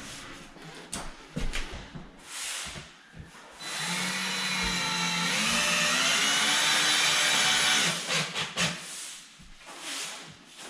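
A few wooden knocks, then a power drill runs for about four seconds, its pitch rising, and stops; more knocks follow.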